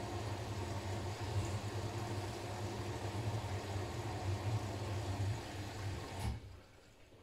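Siemens iQ500 front-loading washing machine running steadily at the very end of its wash cycle, a low hum with water noise that cuts off abruptly with a click about six seconds in as the programme finishes.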